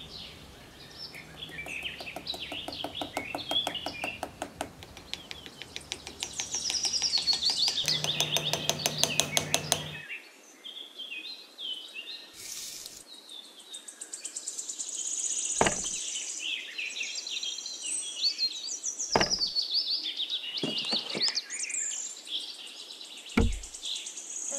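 Birds chirping and singing, many short calls overlapping, with a fast pulsing trill in the first part. Three short low thumps come in the second half.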